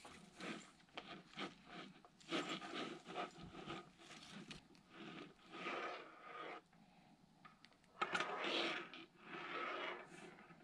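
Blue nylon mesh drying net rustling and scraping as it is handled, in a run of irregular scrapes and rubs, loudest about eight seconds in.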